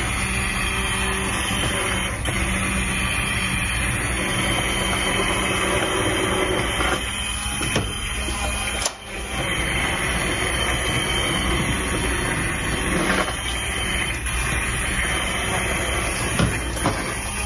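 Handheld immersion blender running submerged in a pot of soup, pureeing chunks of cooked potato, carrot and celery in stock: a steady motor whine with churning. It cuts out briefly about nine seconds in, then runs on.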